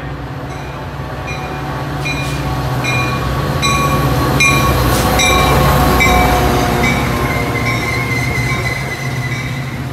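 Metra commuter train led by an EMD F40PH diesel locomotive rolling past, its engine hum and the rail noise building to a peak about halfway through and easing as the bilevel coaches follow. The locomotive bell rings steadily, a little over one strike a second, dropping slightly in pitch as the engine goes by. A thin wheel squeal comes in as the coaches pass.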